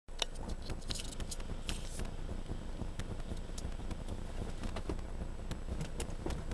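Steady low rumble of an idling car heard from inside its cabin, with scattered light clicks and ticks.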